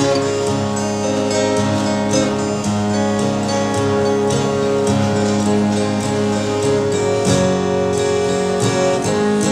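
Acoustic guitar strumming chords in a steady rhythm, an instrumental passage with no singing.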